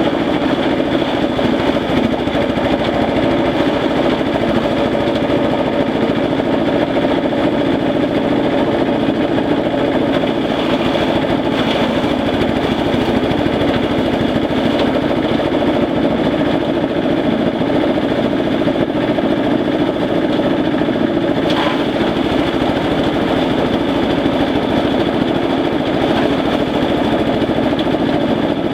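Compost chopper machine running steadily as it shreds elephant grass, a loud continuous engine-driven mechanical drone with a couple of brief faint clatters.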